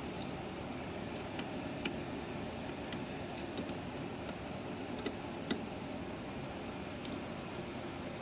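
A handful of short sharp clicks and taps, the loudest about two seconds in and two close together after about five seconds, from handling the furnace pressure switch's hoses and ports while clearing them of dust. The clicks sit over a steady low hum.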